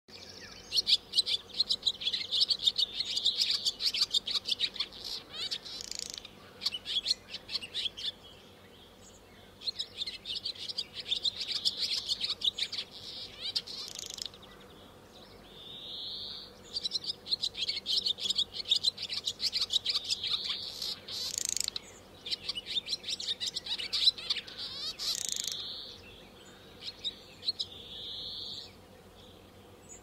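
Barn swallow song: fast twittering and rattling phrases in bouts of several seconds, separated by short pauses, with a few single slurred notes in between.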